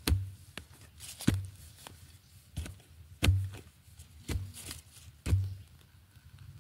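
Metal blade of a long-handled digging spade stabbing into root-filled soil while digging out a wild yam tuber: about six sharp strikes roughly a second apart, each with a dull thud.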